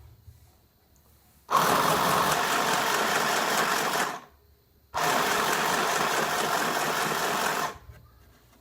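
Mini portable sewing machine running in two bursts of about three seconds each, starting and stopping abruptly, with a short pause between them.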